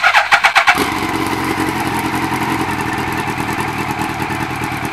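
Yamaha R1 inline-four motorcycle engine starting, a quick burst of firing pulses as it catches, then settling into a steady idle through an aftermarket silencer stuffed with matches.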